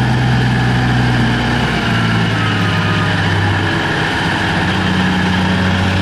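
Diesel engine of a Terex TR100 mining dump truck running steadily, its note dropping a little about two seconds in.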